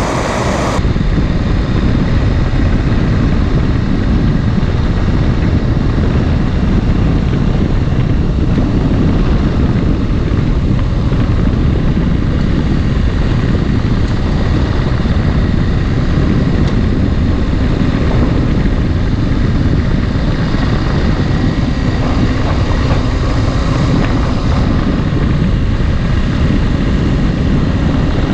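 Dual-sport motorcycle running steadily at road speed, its engine mixed with heavy, low wind rumble on the camera microphone.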